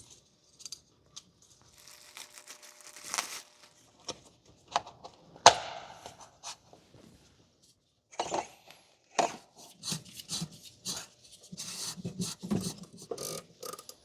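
Handling noises from fitting a new O-ring and filter cartridge into a diesel fuel filter housing: scattered rustles and light clicks, a sharp click about five seconds in, then a run of quick clicks and knocks over the last several seconds.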